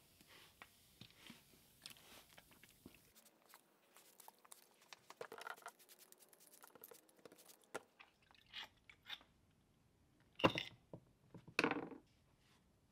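Trigger spray bottle spritzing copper patina solution onto cast metal hammer-head pieces: a run of short sprays and trigger clicks, with two louder hissing sprays near the end.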